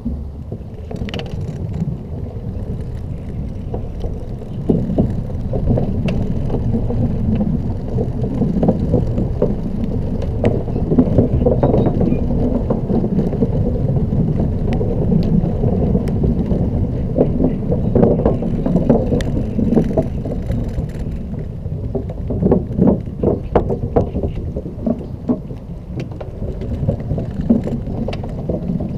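Xiaomi M365 electric scooter riding over a bumpy surface: a steady low rumble of wind and road noise with frequent irregular rattles and knocks as the scooter jolts.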